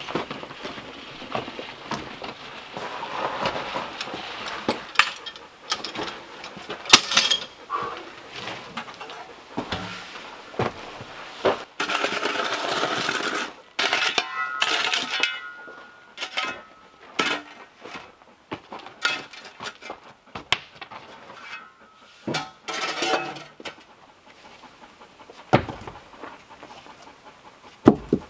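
Irregular knocks and clatters of cut wooden rounds being handled and set down, with a few seconds of scraping midway; the sharpest knock comes about seven seconds in.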